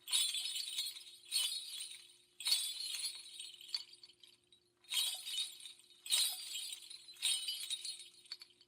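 Bright metallic jingling clinks, struck about seven times at roughly one-and-a-quarter-second intervals, each fading away after it sounds, over a faint steady hum.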